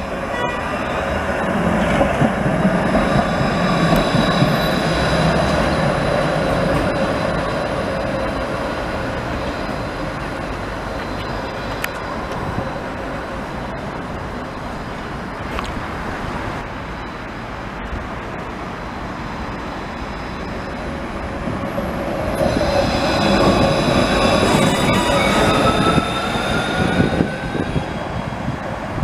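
Electric city trams passing on street track: wheels rumbling on the rails with a steady high-pitched squeal and whine, louder during two close passes. About three quarters of the way in, a whine rises in pitch as a tram picks up speed.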